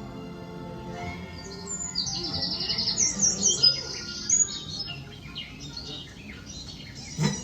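Show soundtrack of held, soft musical tones. About two seconds in, a flurry of high, bird-like chirps and twitters comes in and lasts a couple of seconds.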